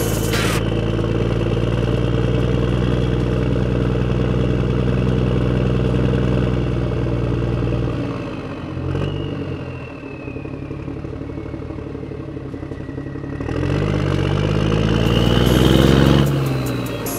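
A large motor-vehicle engine running steadily, then dropping to a lower idle about eight seconds in and revving up again near the end. A few clicks come at the very start.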